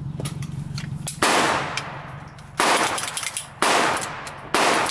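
Four gunshots about a second apart, each with a short echoing tail. Faint metallic clicks of a pistol being handled come before the first.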